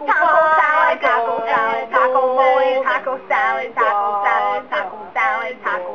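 Recorded pop song: a singer's voice over backing music.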